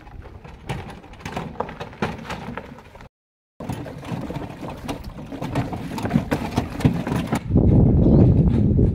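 Handcart loaded with plastic water jerrycans rattling and clattering in irregular knocks as it is pushed over a rough dirt road. The sound drops out for a moment about three seconds in, and near the end a louder, steady low rumble takes over.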